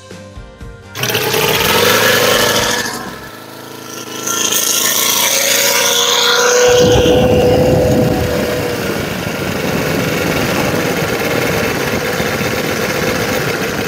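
Evolution 260 multi-cylinder radial model-airplane engine firing up after being hand-flipped, starting suddenly about a second in, dipping briefly, then picking up and running steadily. It is the engine's first start after sitting unused for a few years.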